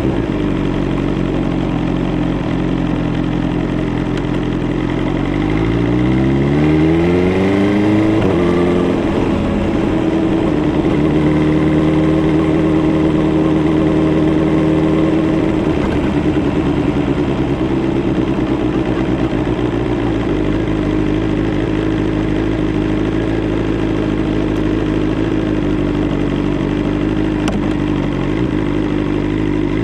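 BMW S1000R's inline-four engine running under way. Its note holds steady, rises from about six seconds in as the bike accelerates, drops suddenly near nine seconds, holds a steady cruising note, then settles to a lower steady note from about sixteen seconds.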